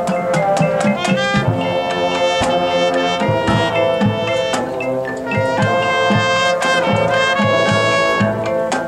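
Marching band playing: the brass section holds chords over regular drum and percussion hits.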